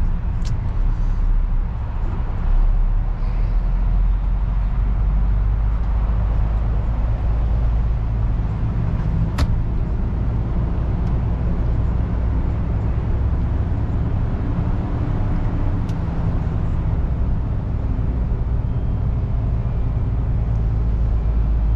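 Cab interior of a MAN TGX lorry: the diesel engine runs with a steady low drone under road and cab noise as the truck creeps along in slow traffic. A sharp click sounds about nine seconds in.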